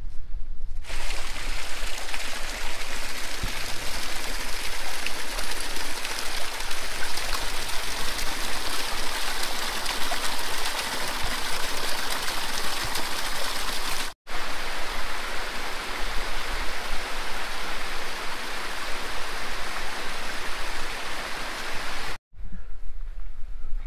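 Mountain stream rushing and splashing over rocks and a small waterfall, a steady loud rush. It cuts in about a second in, breaks off for an instant about two-thirds through, and stops short near the end, leaving only a low wind rumble on the microphone.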